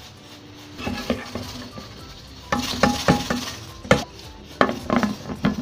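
Metal slotted spoon stirring meat and water in an aluminium pressure cooker, knocking and scraping against the pot with short ringing clinks. The sharpest clink comes near four seconds in.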